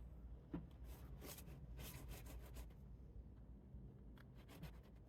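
Near silence: a faint low hum with scattered soft clicks and light rustling.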